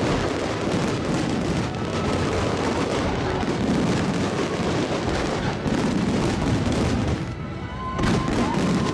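Dense street crowd walking and talking while fireworks go off with repeated bangs and booms, with festival music mixed in. A held high whistle-like tone starts near the end.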